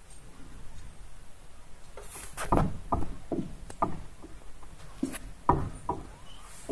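A moving chairlift ride clattering: irregular knocks and clunks from the chair and its haul-rope gear, the two heaviest thumps about two and a half and five and a half seconds in.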